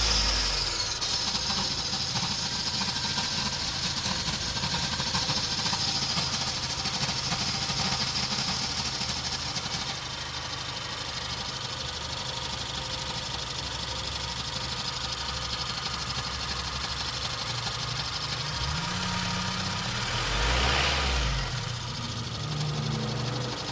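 2015 Honda CR-V's 2.4-litre four-cylinder engine running right after a start, with the weird grinding noise that is the fault being shown. A high hiss eases off about ten seconds in, and the engine note shifts and swells briefly near the end.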